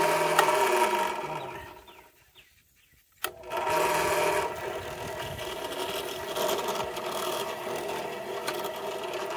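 Benchtop drill press motor running with a steady whine, then spinning down to a stop about a second and a half in. About three seconds in it is switched back on with a click and runs steadily again while the bit is pressed into a plastic pipe to pre-drill a hole.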